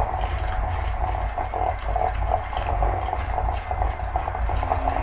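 Electric hand mixer running steadily, its beaters churning softened butter and sugar in a stainless steel bowl as they are creamed together.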